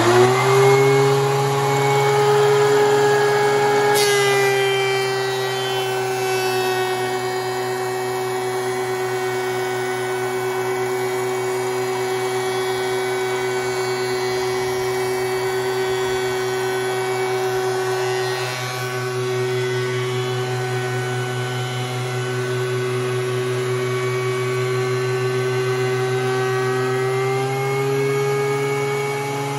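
DeWalt DW735 thickness planer running, its motor and three-knife cutterhead just reaching full speed at the start. About four seconds in a board feeds in with a click and the pitch drops slightly as the knives plane it. Near the end the pitch rises back as the board comes out and the machine runs unloaded.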